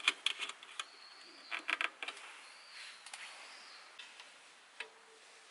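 A bird calling with three short, high arching whistles, over clusters of light clicks and rustles in the first two seconds.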